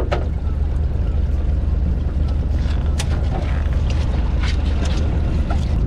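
Boat engine running with a steady low hum, with a few scattered light clicks over it.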